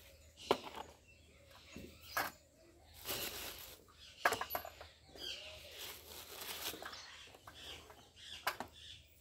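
A few sharp knocks as small hard lumps are dropped into a plastic toy dump truck and a toy tractor trolley, with rustling of a plastic bag between them.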